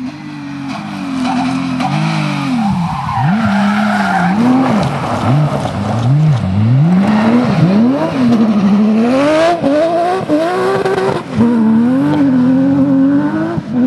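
Porsche 911 GT3 rally car's flat-six engine driven hard, its pitch rising and falling again and again as the throttle is opened, lifted and blipped through the gears. Tyre and gravel noise runs under it, heaviest a few seconds in.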